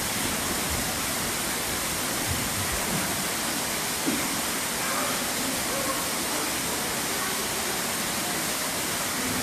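Steady, even rushing background noise with no rhythm or pitch, the kind made by falling water. A few faint short tones come through in the second half.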